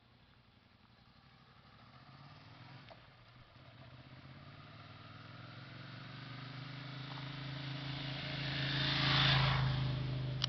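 Motorcycle coming up the road and passing close by: a steady engine note that grows louder over several seconds, is loudest about nine seconds in, then fades.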